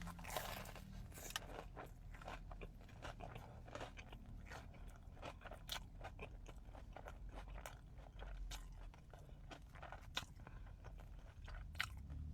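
Crunchy bites and chewing of a crisp-coated Korean corn dog: irregular crackling crunches, heaviest in a burst right at the start.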